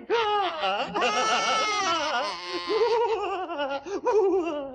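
Two male cartoon characters, a king and his courtier, laughing loudly together in long rising and falling peals.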